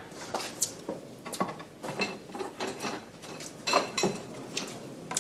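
A run of irregular light clinks, clicks and knocks from small hard objects being handled, a few of them with a short ring.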